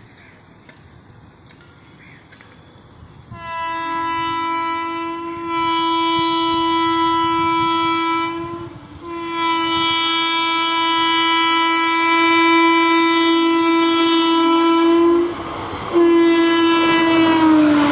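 WAP-4 electric locomotive's horn sounded in four blasts as the train approaches, starting about three seconds in, the third blast the longest. The last blast drops in pitch as the locomotive passes.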